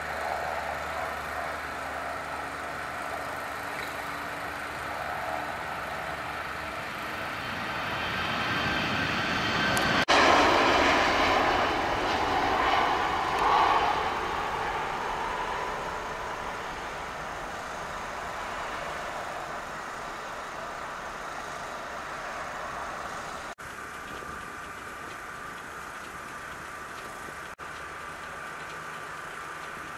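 A Boeing 737 airliner taking off: its jet engines at takeoff power swell as it passes, are loudest about ten to fourteen seconds in, then fade steadily as it climbs away.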